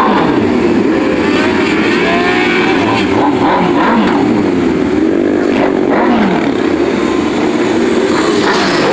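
Many motorcycle engines, mostly sport bikes, running and revving together as a group rolls past at low speed. The pitches of the separate engines overlap and keep rising and falling.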